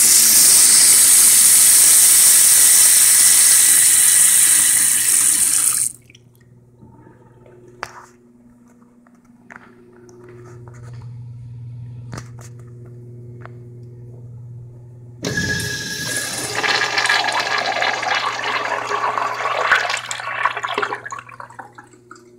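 Sink faucet running steadily into a basin, shut off abruptly about six seconds in. About fifteen seconds in a toilet flushes with a loud rush of water that fades out about six seconds later.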